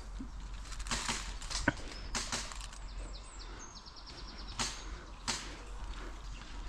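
Airsoft guns firing: scattered single sharp cracks a second or so apart, with a short rapid rattle of shots near the middle.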